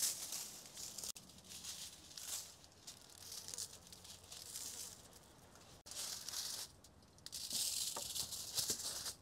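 Salt being sprinkled by hand onto a raw lamb forequarter lying on foil: a faint, high pattering hiss in about four short spells with pauses between them.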